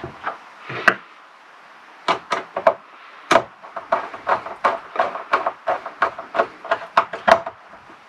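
Screwdriver turning a terminal screw on a solar charge controller to clamp a wire: a run of sharp clicks, about three a second, starting about two seconds in, with a single click about a second in before it.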